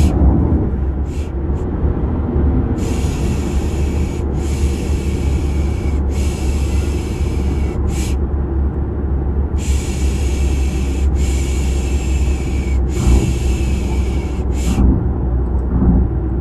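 Repeated 'shh' shushing sounds, each a second or two long with short pauses and a few quick shorter ones, over the steady low rumble of a car sound effect. It is a baby-soothing sleep mix.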